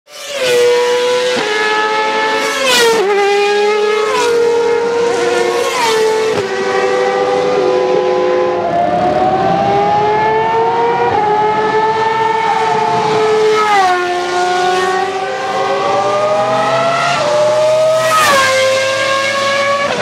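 Ferrari Formula 1 car's high-revving engine accelerating hard. Its pitch climbs and then drops sharply at each of a series of quick upshifts, with a smoother, slower climb in the middle.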